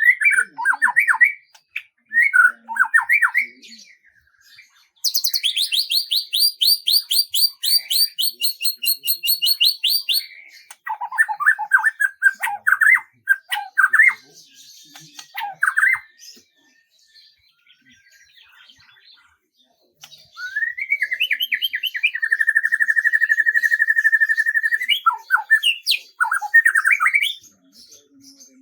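Songbird singing in phrases of quick chirps and rapid trills: a long high trill about five seconds in, a quiet pause in the middle, then a lower, steady trill a few seconds later.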